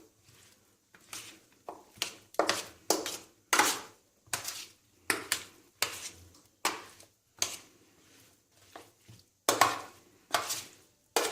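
Cut zucchini, red pepper and tomato being tossed and mixed with an oil, garlic and spice marinade: a run of short, wet rustling strokes, a little under two a second, with a brief lull about three quarters of the way through.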